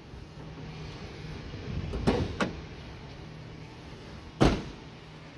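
Clicks and knocks as the Chevrolet Express van's hood release is worked from the driver's footwell, then a single loud thump about four and a half seconds in.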